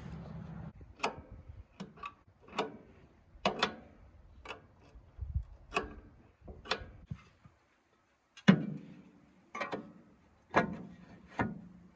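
Hand tools knocking and clanking on metal, about a dozen sharp, irregularly spaced strokes, several ringing briefly. A low steady hum stops under a second in.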